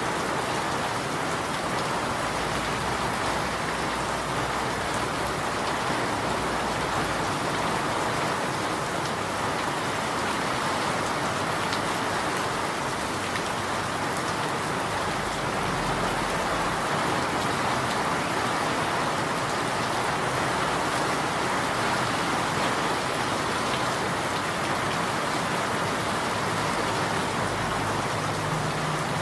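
Steady rain falling and pattering on surfaces, an even hiss that holds at one level throughout.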